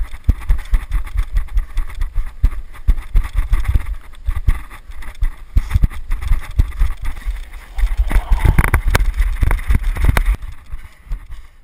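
Running footsteps on a dirt trail, heard through a camera worn on the runner's head: a steady run of low thuds, about three a second, with a louder rushing stretch about eight seconds in.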